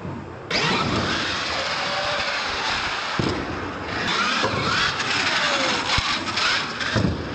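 R/C monster truck's motor and drivetrain whining, the pitch rising and falling with the throttle, as it drives over the concrete floor and ramps. Two sharp thumps come near the end as it lands.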